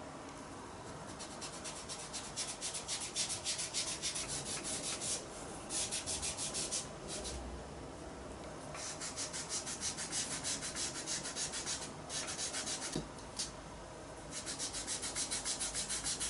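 A folded cotton pad rubbed rapidly back and forth over paper, working pastel powder into the surface through a stencil. It comes in several runs of quick scratchy strokes, broken by a few short pauses.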